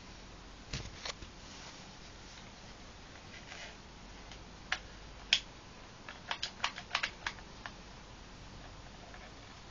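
Light plastic clicks and taps from a Nerf Nitefinder toy blaster being handled: two about a second in, a sharper one a little after five seconds, then a quick run of about seven between six and seven and a half seconds.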